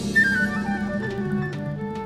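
Afro-Cuban jazz band recording: a flute line enters about a quarter second in and steps down through a short melodic phrase over a sustained bass note and light percussion.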